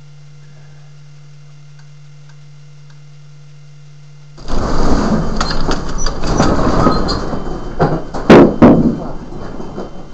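A magnitude 5.1 earthquake aftershock hits suddenly about four seconds in: a deep rumble with the building and its contents rattling, two loud knocks a little after eight seconds, then easing off.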